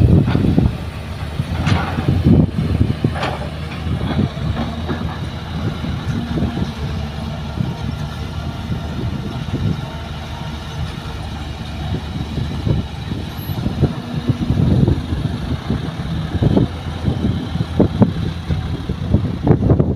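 Diesel engines of a light dump truck and a Kobelco hydraulic excavator running steadily, with scattered knocks and thuds.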